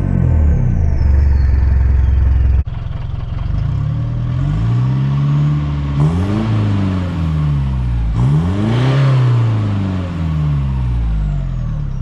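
Mitsubishi Triton turbo-diesel running through a 3-inch straight-pipe exhaust, loud and steady. About two and a half seconds in it cuts to the same engine with a muffler and high-flow cat fitted: noticeably quieter, revved up and let fall back several times.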